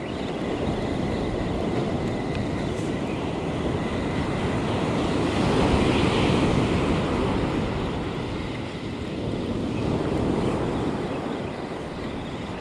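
Ocean surf breaking and washing up a sandy beach, with wind rumbling on the microphone. The wash swells about halfway through and again near the end.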